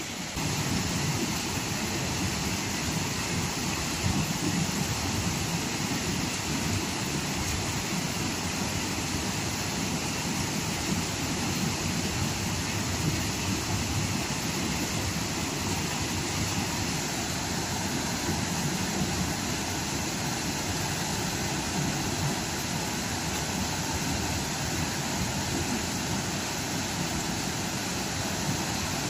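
Fast river water pouring over a weir into a fish-trap channel and churning below it: a steady rushing noise of white water.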